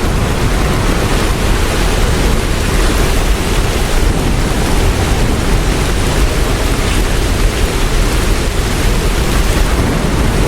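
Hailstorm: a steady, dense roar of falling hail.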